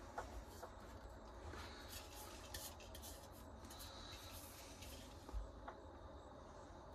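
Faint rubbing and scratching with a few light clicks from hand work on a leather knife sheath, over a low steady hum.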